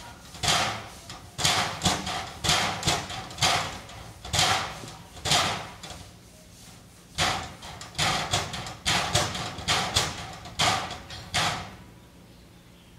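Amur tiger mother and cub play-fighting: a string of about fifteen short, hissy bursts at uneven spacing, with a pause of about a second around the middle.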